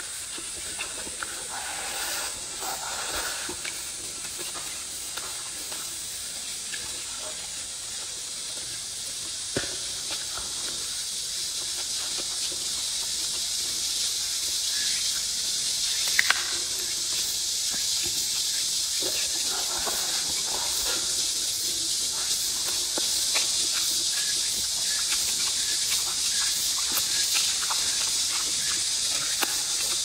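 Close-up eating: soft chewing and mouth sounds with a few sharp clicks, over a steady high hiss that grows slightly louder.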